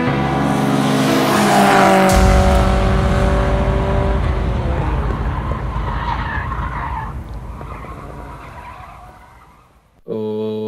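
Cinematic logo-reveal sound effect: a swelling whoosh into a deep rumbling hit, with a few held tones sliding slightly down above it, fading away over about eight seconds. Near the end a steady, deep held tone begins abruptly.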